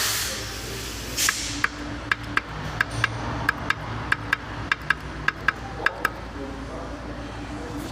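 Quick irregular metal clicks, about three or four a second, from a worn balance shaft in the Renault Fluence 2.0 16v's sump module knocking in its housing as it is rocked by hand; they stop about six seconds in. The wear and play in the balance-shaft housing are the cause of the engine's knocking noise.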